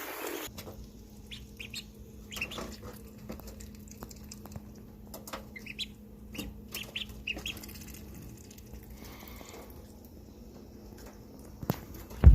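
Ducklings peeping in short, scattered high chirps among small clicks and scuffs, over a faint steady hum. A loud knock comes near the end.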